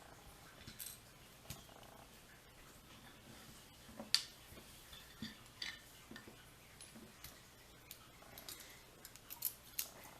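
Scattered small metal clicks and scrapes from prying the retaining clip off the back of a pin-tumbler lock cylinder. The sharpest click comes about four seconds in, with a quick cluster of clicks near the end.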